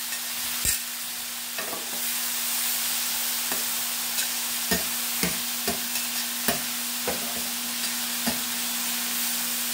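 Chicken sizzling on a very hot grill in a steady hiss, with about a dozen short, irregular clicks of a utensil against the grill or food.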